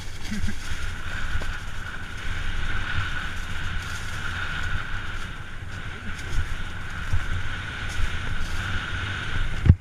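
Downhill mountain bike rolling fast over a dirt trail, heard through a helmet camera: wind buffeting the microphone over a constant rumble of tyres and frame, with scattered knocks from bumps and one hard thump near the end.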